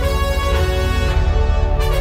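Music with heavy, steady bass and sustained melodic tones.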